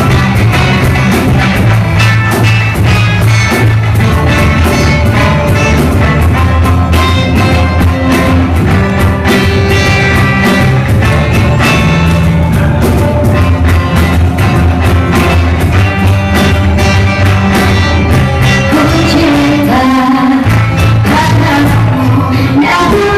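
Live band playing a pop song on guitars, violin and keyboard, with a woman singing.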